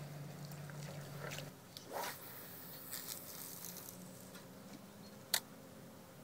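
Faint handling sounds of a feeder rod and spinning reel: a low steady whirr, as of the reel being wound, stops about a second and a half in, followed by a short hissing rush and scattered small clicks of line and tackle. One sharp click comes a little after five seconds.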